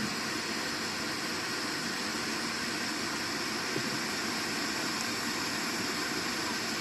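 Steady, even hiss with no distinct events, a faint tick about four seconds in.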